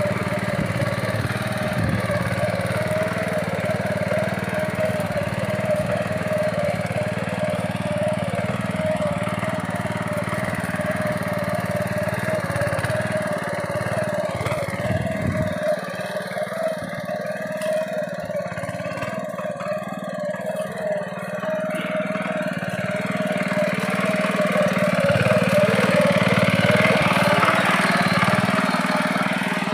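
Honda GX200 single-cylinder four-stroke engine on a walk-behind power weeder, running steadily under load as its rotary tines churn through soil, getting louder toward the end.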